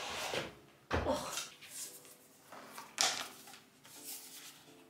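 Folding home treadmill being slid out across the floor and its handlebar raised: plastic and metal clatter with two sharp knocks, about a second in and again three seconds in.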